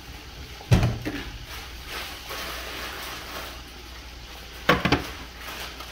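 Butter and vegetables sizzling quietly in a lidded pan, with a sharp knock about a second in and a quick run of knocks near the end.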